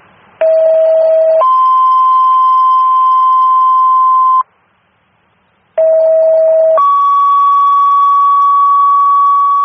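Two-tone sequential paging tones on a fire-dispatch radio channel, sent twice: each set is a short, lower tone of about a second stepping up to a longer, higher tone of about three seconds. The second set ends on a slightly higher tone than the first. It is the tone-out that alerts fire companies just before a dispatch.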